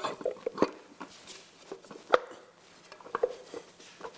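Torque converter being turned by hand and worked onto the input shaft of a TH700 automatic transmission: irregular metal clicks and clunks, the sharpest about two seconds in.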